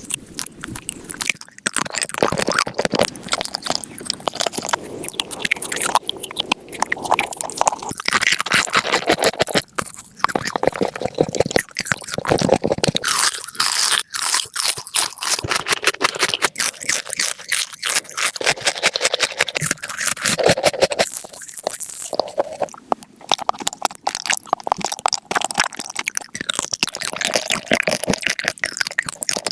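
Close-miked crunching and chewing of hard, crunchy food, a dense run of rapid crackling bites that goes on throughout.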